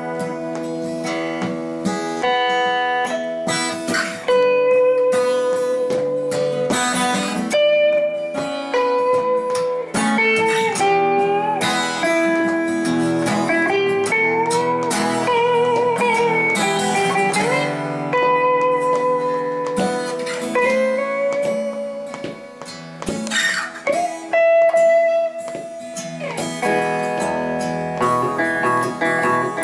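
Acoustic guitar strumming chords while a Telecaster-style electric guitar plays a blues-style lead of held single notes, some bent and wavering about halfway through.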